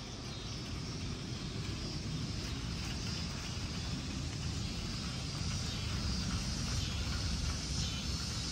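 Jarflies (cicadas) droning in a steady chorus, swelling a little toward the end: they are singing because the sky has darkened before a storm. A low rumble lies underneath.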